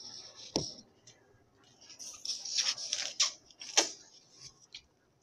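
A freeze pop being eaten close to the microphone: a short hiss, a single click, then a busy cluster of hissing and sharp clicks about two to four seconds in.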